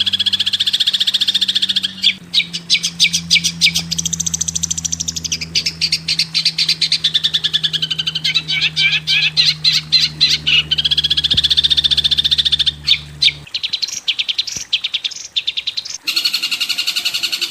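Songbird chattering in rapid, shrill repeated chirps and trills, several a second, over a steady low hum that stops about two-thirds of the way through. The song switches abruptly to a different pattern near the end.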